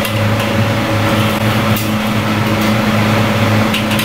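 Steady loud hum and rush of a restaurant kitchen's wok range and its ventilation running, with a couple of light clicks on metal.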